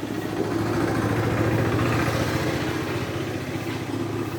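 A vehicle engine running steadily at idle with an even pulsing beat, slightly louder for a second or so near the start.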